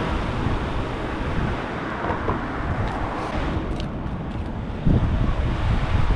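Wind buffeting the microphone as a rough, uneven rumble, gusting harder near the end.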